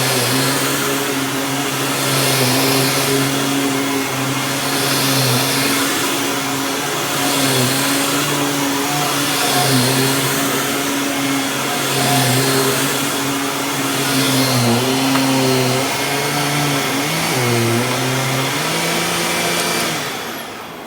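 Dirt Devil Ultra Vision Turbo bagless upright vacuum running on carpet, its motor hum dipping in pitch again and again as it is pushed back and forth. The machine is bogging down under load despite a new belt. The motor winds down near the end.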